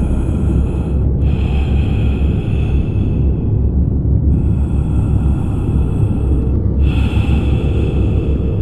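Experimental soundtrack drone: a dense, steady low rumble with a higher, airy tonal layer that fades in and out every two to three seconds.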